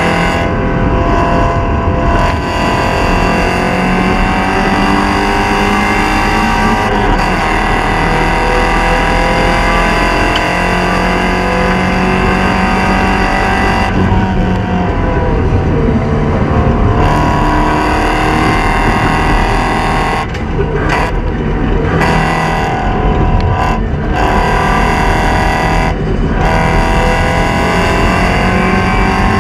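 Porsche 944 Spec race car's four-cylinder engine running hard at race pace, its pitch slowly rising and falling. The sound thins out briefly several times in the second half.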